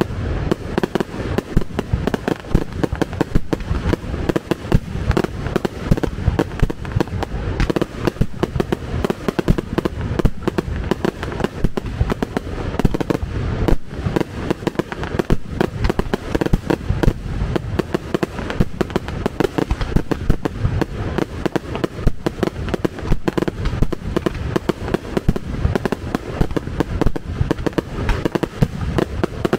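Fireworks display: a dense, unbroken barrage of loud bangs and crackles, many per second, with no pause.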